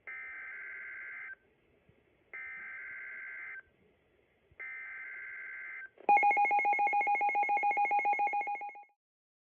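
Emergency Alert System header: three bursts of SAME digital data tones, each a little over a second long and about a second apart. These are followed about six seconds in by a louder, rapidly pulsing attention tone that lasts about three seconds and then stops.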